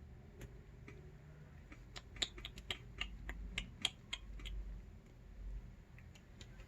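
A quick, irregular run of light clicks and taps, lasting about two and a half seconds and starting about two seconds in.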